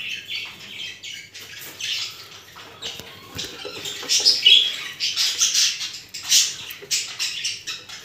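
Budgerigars chirping and chattering: a quick run of short, high chirps that grows louder about halfway through.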